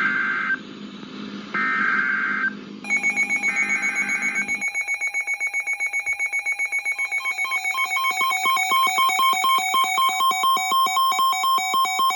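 Emergency Alert System audio: three short two-tone digital data bursts, the SAME code that ends an alert message. These are followed, about 3 seconds in, by an electronic attention tone. The tone is made of several pitches, pulses rapidly at first, and then pulses more slowly after a second tone joins it.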